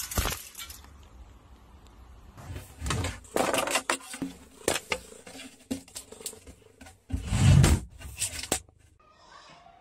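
Irregular rustling and handling noise with a series of knocks, the loudest a heavy thump about seven seconds in.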